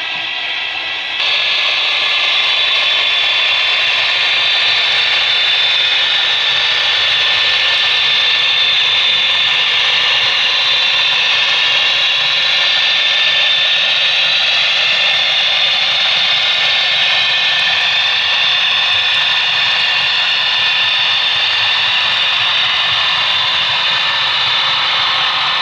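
HO-scale model Union Pacific diesel locomotives and coal cars running along the layout track: a steady running noise that comes in suddenly about a second in and holds level.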